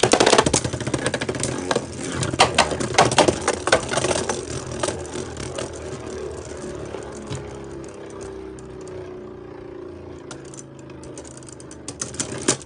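Two Beyblade Burst spinning tops, Wizard Fafnir and Alter Chronos, spinning in a plastic Beyblade stadium. A loud clatter at the start and rapid clicking clashes for the first few seconds settle into a steady whir whose hum slowly falls as the tops spin down. A fresh run of clattering clashes comes near the end.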